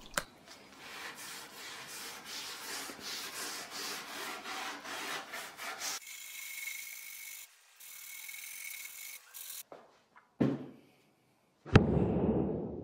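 Hand scrubbing a freshly sanded wooden tabletop with a pad wet with oxalic acid solution, quick back-and-forth rubbing strokes. A fainter steady hiss follows, and near the end come two knocks, the second the loudest.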